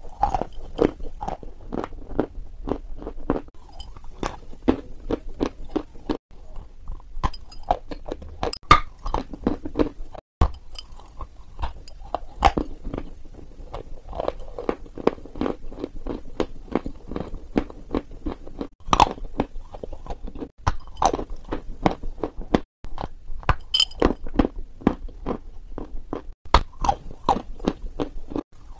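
Close-miked biting and chewing of a crunchy dessert: a steady run of crisp crunches with wet mouth sounds and a few sharper, louder bites. The sound drops out briefly a few times.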